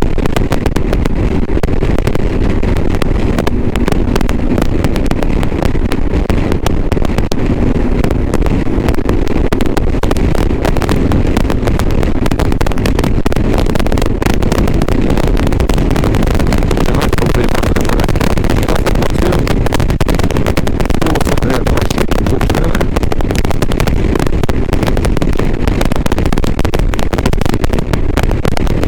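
Motorcycle engine and wind noise recorded through a GoPro Hero 7 Black with an external microphone, buried under constant harsh crackling distortion: the faulty, bad sound of that camera-and-mic setup.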